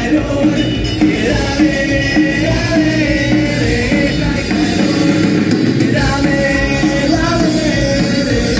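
Live rock band playing a song loudly, with a wavering melody line over the band.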